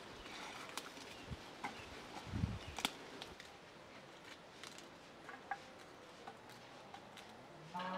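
Scattered crisp snaps and rustles of romaine lettuce leaves being broken off the head by hand, with a low thud about two and a half seconds in. Right at the end a cow starts to moo.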